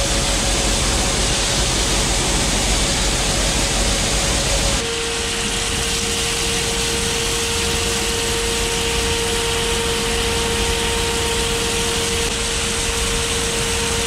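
Steady, loud farm machinery running as a grain auger unloads shelled corn, a dense rushing noise with a steady whine. About five seconds in the sound switches abruptly to another steady machine drone with a lower whine.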